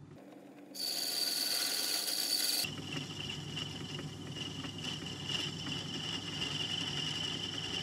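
Myford ML7 lathe running, its cutting tool turning down a phosphor bronze bar, with a low hum and a steady high-pitched whine. About a second in, a louder hiss sets in for about two seconds and cuts off suddenly, leaving the steady whine.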